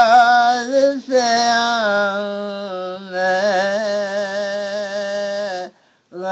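One voice singing an Islamic devotional chant, holding long drawn-out notes that waver slightly. It breaks briefly about a second in and stops near the end.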